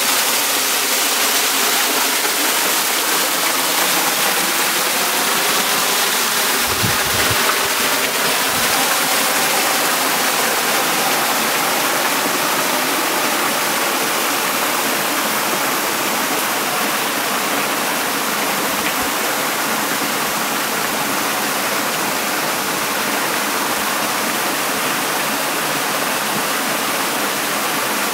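Steady rushing and splashing of water from a swimming pool's waterfall cascade.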